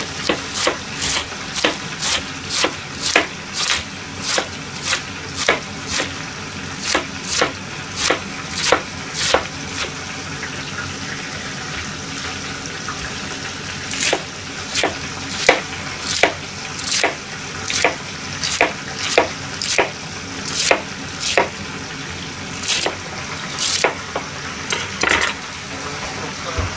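Kitchen knife shredding a head of cabbage on a plastic cutting board: a steady run of chops about two a second, with a pause of a few seconds partway through, over a steady background hiss.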